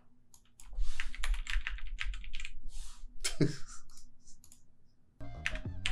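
Typing on a computer keyboard: a quick, uneven run of key clicks over the first few seconds and a few more shortly after, with one short voice sound in between.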